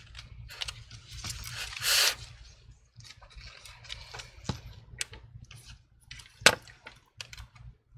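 Gloved hands handling laptop internals: a rustling stretch of scraping and shuffling, then a few sharp clicks and taps of plastic and metal parts, the loudest about six and a half seconds in.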